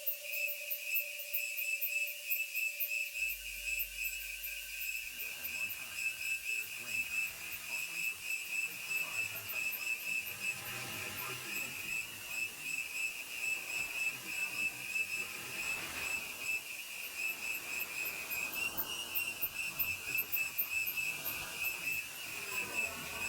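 Layered, studio-processed field-recording soundscape: a steady high whistling tone with a fast pulse runs throughout. Beneath it, lower held tones stop about five seconds in and give way to several swooping tones that dip and rise again.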